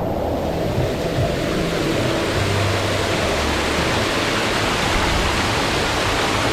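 Storm sound effect on a multimedia water slide: a steady, loud hiss of heavy rain over a low rumble.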